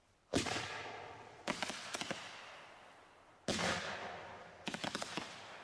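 Piromax PXB3806 'Lutra' low-noise 30 mm firework cake firing two shots about three seconds apart. Each shot is a sudden dull thump with a hiss that fades, followed about a second later by a quick run of small sharp pops as the shell breaks, with no loud report.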